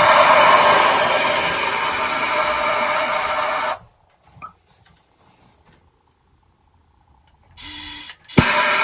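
Plumbing torch flame hissing steadily while a copper fitting is soldered. It cuts off suddenly about four seconds in, leaving near silence with a few faint small sounds, then a short burst and a sharp click near the end before the hiss returns.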